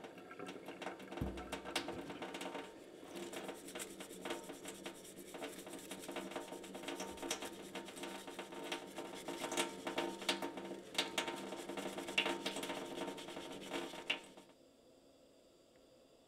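Tap water running into a stainless steel sink while a stiff brush scrubs a wet steel axe head, with scratchy scraping and sharp clicks throughout. It stops abruptly near the end, leaving quiet room tone.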